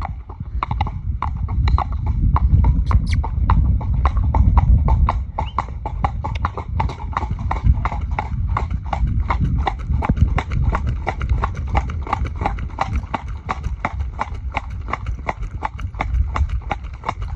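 A horse's hooves clip-clopping on a tarmac lane at a trot, in a quick, even rhythm of several strikes a second, with a low rumble underneath.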